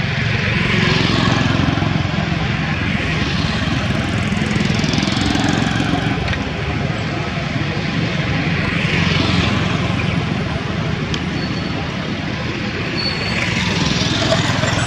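Road traffic: a steady engine rumble with several vehicles swelling past, a few seconds apart.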